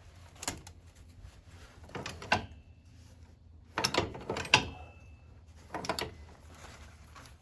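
Nylon zip ties being pulled tight around a hydraulic hose sleeve, ratcheting in several short pulls.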